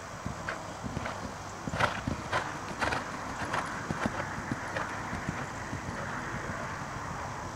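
Hoofbeats of a chestnut horse trotting on sand arena footing: a regular beat about two a second, sharpest about two to four seconds in, then softening.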